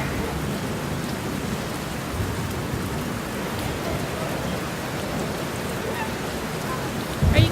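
Steady outdoor noise with a low rumble, like weather or wind on the microphone, with a few low knocks near the end.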